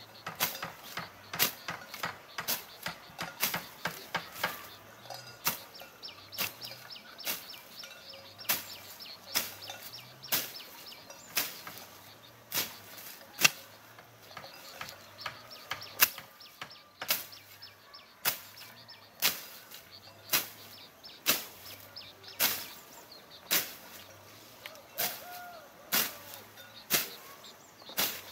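A short-handled blade tool chopping into weeds and vines, sharp chops coming one or two a second, unevenly spaced.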